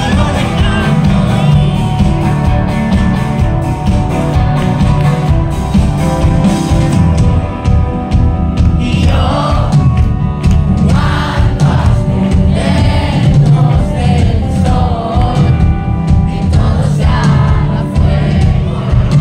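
Live pop-rock band playing loud, with a driving drum beat and heavy bass. A voice singing comes in about nine seconds in.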